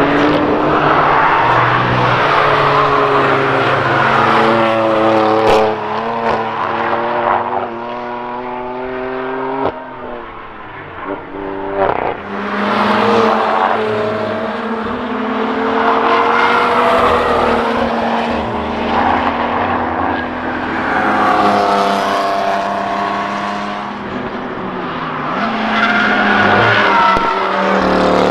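Several cars passing one after another at speed, their engines revving hard and rising in pitch as each accelerates past, with a brief lull near the middle.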